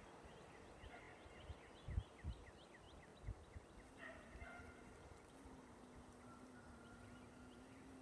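Faint outdoor ambience with birds calling: a quick run of short chirps, then a few other brief calls. A low steady hum comes in about halfway through, and a few soft low bumps sound in the first half.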